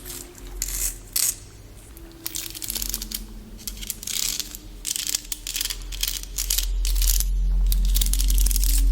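ASMR object-handling sounds: crinkly rustling and light clicky taps in repeated bursts. Underneath runs a low underwater-style rumble with soft steady tones, which swells louder about six seconds in.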